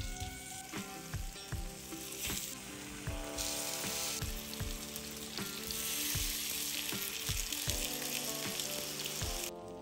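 Butter and sugar sizzling in a hot frying pan as whole peeled bananas are laid into it, with background music with a steady beat underneath. The sizzle cuts off suddenly near the end.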